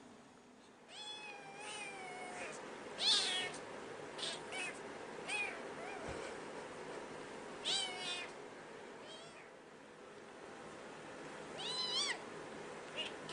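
A cat meowing repeatedly: about eight short, high-pitched meows at irregular intervals, the loudest about three seconds in.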